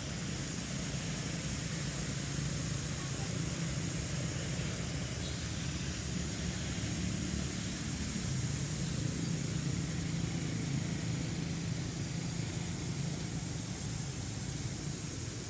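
Steady outdoor background noise: a low hum under a steady high-pitched hiss, with no distinct events.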